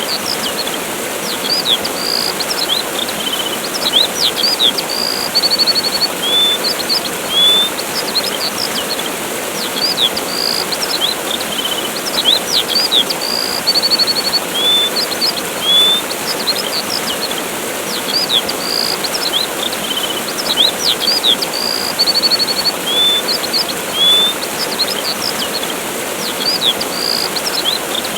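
Steady rush of a waterfall with small songbirds chirping over it: short high chirps, whistles and buzzy trills. The same run of bird calls comes round again about every nine to ten seconds, as in a looped recording.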